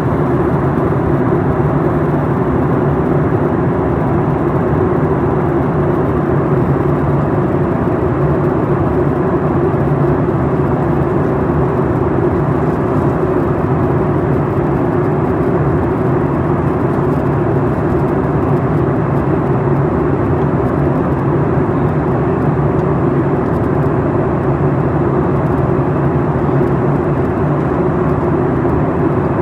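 Cabin noise inside a Boeing 737 MAX 8 airliner in descent: the low, even drone of its CFM LEAP-1B turbofan engines blended with the rush of airflow past the fuselage. It stays at one steady level throughout.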